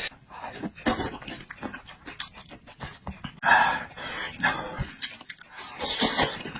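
Close-up eating sounds of a man working through a chili-laden pig blood stir-fry: irregular chewing and slurping with sharp, breathy gasps between mouthfuls from the chili heat.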